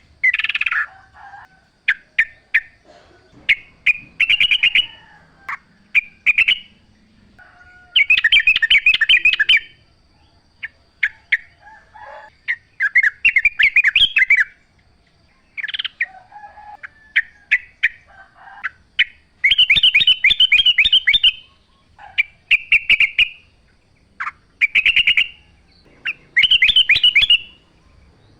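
Yellow-vented bulbul (trucukan) singing: loud, bubbly phrases of quick notes, each lasting a second or two and repeated every few seconds, with single sharp chirps in between.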